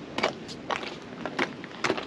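Footsteps approaching, a handful of short crunching steps at an uneven pace over a steady outdoor noise bed.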